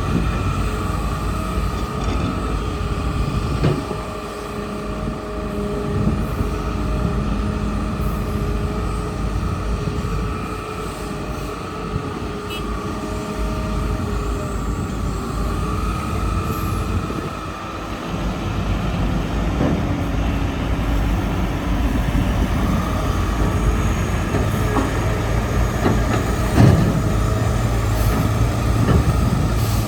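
Hitachi hydraulic excavator working: its engine running under load with a steady whine that shifts in pitch, and a few knocks, the loudest about two-thirds of the way through.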